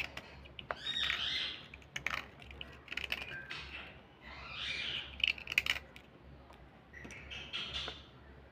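A small blade scraping and shaving slate pencils, in several short spells of crisp, scratchy scraping with sharp clicks between them.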